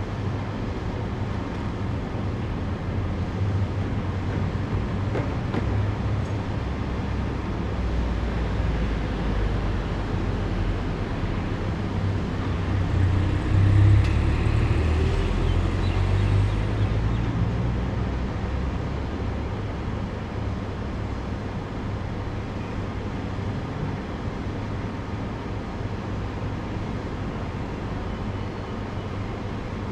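Street traffic with a steady low rumble; a minibus drives by about halfway through, its engine swelling and then fading as it passes.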